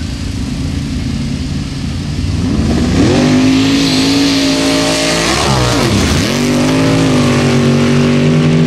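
Two Formula Offroad sand-drag cars launching from the start line. The engine note climbs steeply about two seconds in and holds high, drops and climbs again once near six seconds, then stays at full revs as the cars run down the track.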